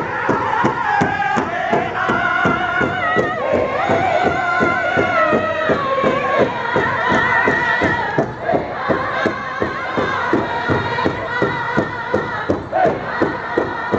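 Powwow drum group singing in high, wavering voices while striking a large shared bass drum together in a steady, fast beat; the voices dip briefly past the middle and a new sung phrase starts near the end.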